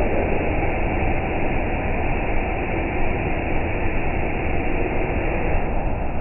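CNC machining center running during an automatic tool change, heard slowed down as a steady, dull rumbling noise with no distinct clicks or tones.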